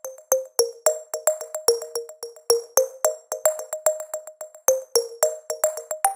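Electronic music: a plucked synthesizer figure of short notes, about four a second, with crisp ticking percussion on top and no bass.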